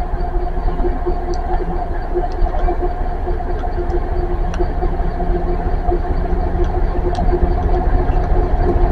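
DB Cargo Class 66 diesel locomotive approaching slowly, its two-stroke V12 EMD engine running with a steady low rumble and a steady hum. It grows gradually louder as it nears.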